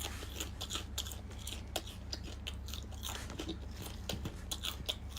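Close-up crunching and chewing of deep-fried scorpions: many short, crisp cracks as the fried shells break between the teeth, over a low steady hum.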